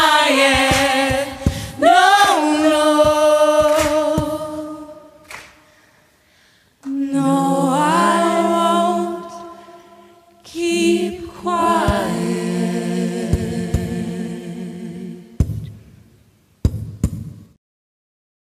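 Several voices singing a cappella, holding sustained chords in three long phrases with short breaks between them, then fading out.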